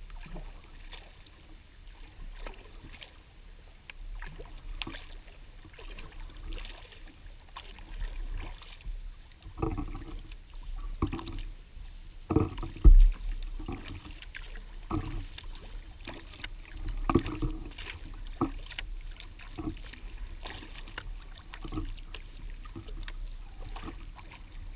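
Kayak paddling: paddle blades dipping and splashing with water dripping off, in short irregular strokes over a low rumble, and one louder thump about halfway through.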